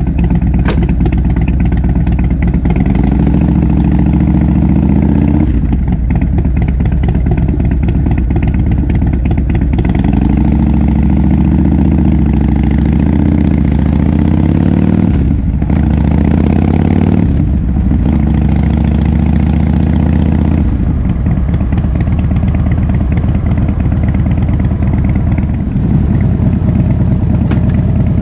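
2011 Harley-Davidson Fat Bob's air-cooled V-twin running loud through a KessTech aftermarket exhaust, its pitch and loudness shifting several times with changes of throttle.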